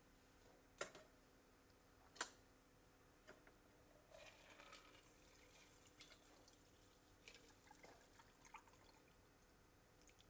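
Faint clinks of glass and ice while a rum cocktail is mixed, with two sharper clinks in the first couple of seconds, then quiet pouring and dripping of liquid with small scattered ticks.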